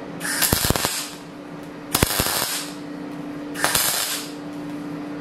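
Arc welder striking three short tack welds on a steel rod, each a crackling, sputtering burst of about half a second to a second, roughly a second and a half apart.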